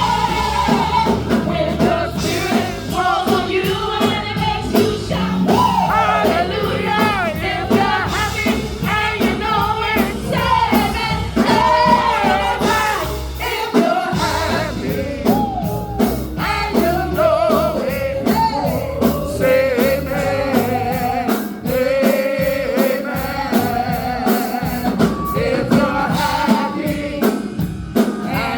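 Gospel music: voices singing over instrumental accompaniment. A heavy low bass line drops out about halfway through.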